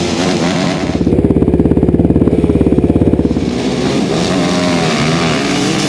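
Several motocross bikes running at a start line, their engines idling and revving up and down. Between about one and three seconds in, one nearby engine runs with a loud, fast, even pulsing beat.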